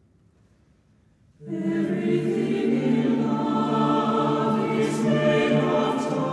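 A mixed chamber choir singing unaccompanied: near silence for a moment, then the voices come in together about a second and a half in and hold full, sustained chords.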